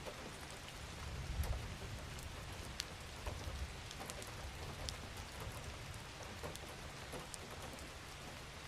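Steady rainfall, an even patter with scattered individual drops ticking. A low rumble swells briefly about a second and a half in.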